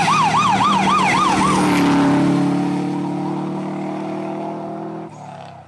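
A siren-like wail sweeping up and down about three to four times a second over a rally car's engine, the wail ending about one and a half seconds in. The Subaru Impreza rally car's engine then goes by at speed, its note dropping a little and fading away until a sudden cut near the end.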